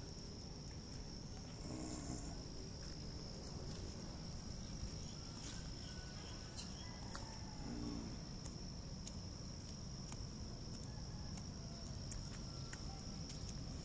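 Insects trilling on one steady high pitch, over a low rumble of outdoor background noise.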